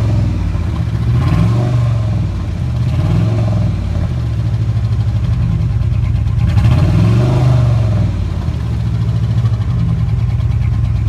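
Dodge Durango 4.7-litre V8 running, revved up and back down several times, with a fast, steady knock under the engine note that the owner calls rod knock after a blown piston ring.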